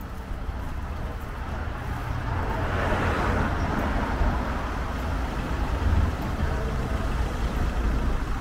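Street traffic: a vehicle drives past, loudest about three seconds in, over a steady low rumble.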